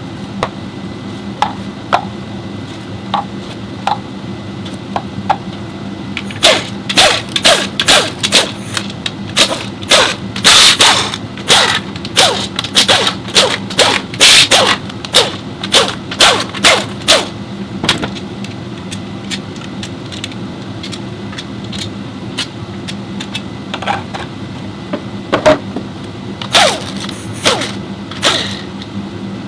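A series of sharp knocks and clacks, about two a second for some ten seconds in the middle, with a few more near the end, over a steady low hum.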